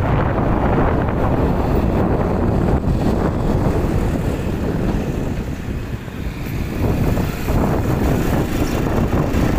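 Wind rushing over the microphone of a moving vehicle, with the low rumble of the ride underneath; it eases briefly about six seconds in.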